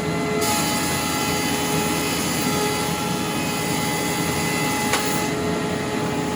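Large industrial thickness planer running, with a board fed through it. The cutterhead cuts with a loud hiss that starts about half a second in and stops about five seconds in, over the machine's steady hum.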